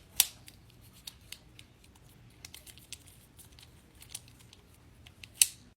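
Small plastic clicks and taps of an infinity cube fidget toy being handled and folded, with two louder clicks, one just after the start and one near the end.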